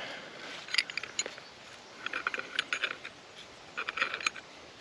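Hand-turned auger being twisted into hard persimmon wood to bore a hole, creaking and clicking in short spells as each turn bites into the grain.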